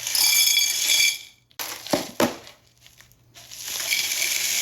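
Ice cubes clattering into a glass. There is a rattling burst with ringing clinks in the first second, a few sharp single clinks around two seconds in, and another stretch of rattling near the end.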